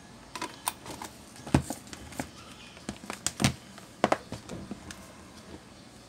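Irregular sharp clicks and knocks from a Lenovo ThinkPad T430 laptop being handled and turned over on a workbench, its plastic case knocking against the bench, with a few louder knocks in the middle.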